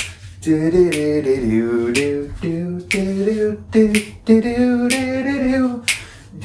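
A man singing a tune in long held notes while snapping his fingers about once a second.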